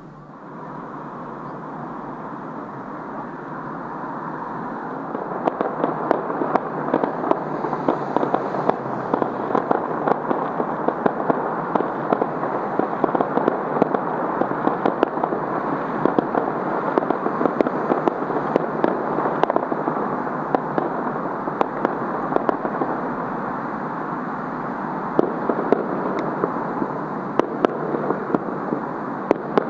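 Fireworks going off in a dense, continuous crackle of sharp pops and bangs, building up over the first few seconds and then keeping on steadily.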